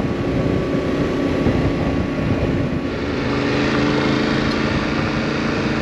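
Yamaha Tenere 700's parallel-twin engine running at a steady cruise under way, with low wind and road rumble. About halfway through the sound changes as the bike is on a gravel road, with a steady hiss from the loose surface over the engine's hum.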